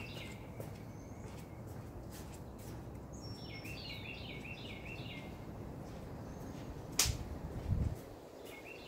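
Backyard ambience: a songbird sings a repeated warbling phrase about three to five seconds in, over a steady low background rumble. About seven seconds in there is one sharp click, followed shortly by a brief low thump.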